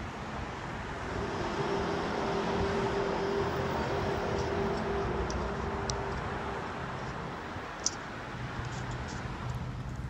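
An unexplained droning hum outdoors over a wash of traffic noise, which the listener takes for a strange sound in the sky coming from one direction. A held tone fades about seven seconds in, and a lower steady hum carries on.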